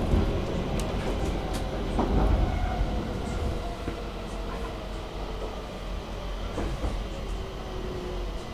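Stockholm metro (tunnelbana) train running along the track: a steady rumble, louder about two seconds in, with a few sharp clicks in the first two seconds.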